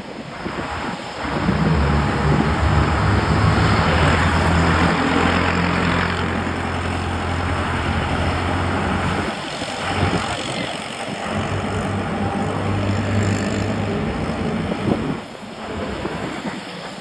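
A motor vehicle's engine running close by at a steady pitch, dropping away about nine seconds in and returning for a few seconds before fading again, over a constant rushing noise.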